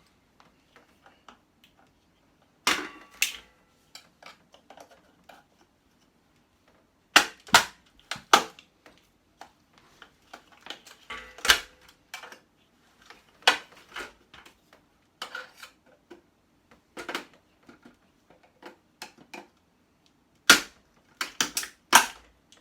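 Irregular sharp clicks and knocks, some in quick pairs and clusters with gaps of a few seconds, as a cable is cut and pried loose from the cabinet with a knife.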